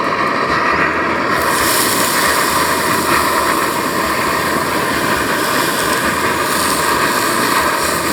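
Ribeye steak sizzling loudly in smoking-hot oil in a cast iron pan, the hiss starting about a second and a half in as the meat goes down. The outdoor stove's burner runs steadily underneath.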